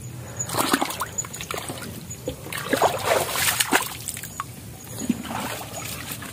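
Splashing and sloshing of shallow water, in a few irregular bursts, as the water is stirred by movement through it.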